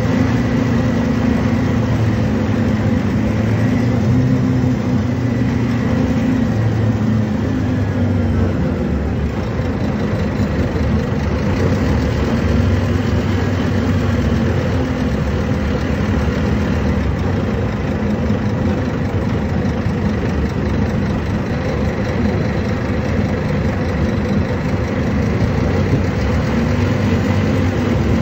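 Rear-mounted Scania DC09 five-cylinder inline diesel of a city bus, running steadily, heard from inside the passenger cabin. Its deeper engine note is strongest for the first few seconds and eases slightly after.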